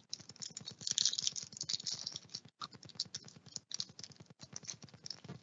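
Foil wrapper of a trading-card pack crinkling as it is torn open and peeled off the cards: a dense crackle of small clicks, loudest about a second in.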